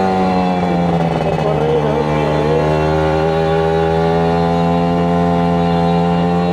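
Kawasaki Ninja 150RR's two-stroke single-cylinder engine running while riding. Its pitch dips over the first second or two, as when the throttle eases, then holds steady.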